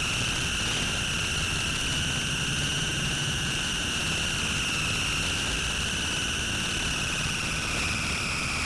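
A sustained high-pitched electronic drone from a battery-powered instrument, one steady tone with fainter overtones, its pitch sinking slightly near the end, over a low rumble.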